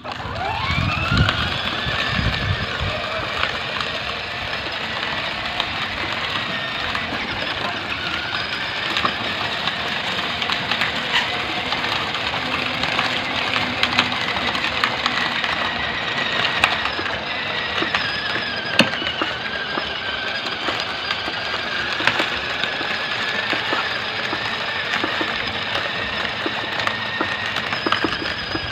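Battery-powered ride-on toy tractor running: a motor whine that rises in pitch as it starts moving, then holds steady with slight wavers as it drives along.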